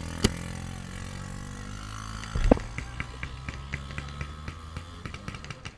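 Paintball markers firing: a sharp pop just after the start and a heavier thump about two and a half seconds in, then a fast, even run of fainter pops, about five a second, through the second half. A steady low hum runs underneath.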